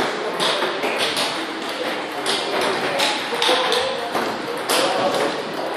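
Table tennis balls clicking off bats and tables in irregular knocks from rallies on several tables, with people talking in the background.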